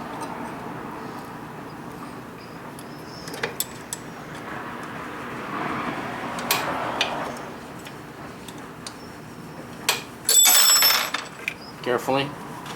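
Metal clicks, knocks and clinks as the shell plate is taken off a Dillon 550B reloading press, with a brief ringing metallic scrape about ten seconds in.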